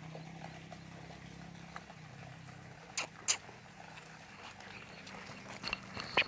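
Labrador retriever puppy playing on gravel with a hand: a few sharp clicks and taps, two about a third of a second apart midway and a cluster near the end, with a brief high squeak at the very end. A low steady hum runs under the first two seconds.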